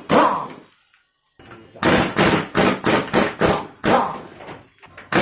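A rapid series of sharp strikes, each ringing briefly, about two to three a second, broken by a moment of dead silence about a second in.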